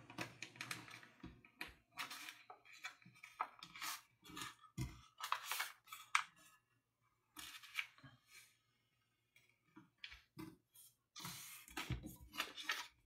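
A sheet of letter paper rustling and crinkling in short, scattered sounds as a paper airplane's wing is folded over and the crease is pressed flat by hand.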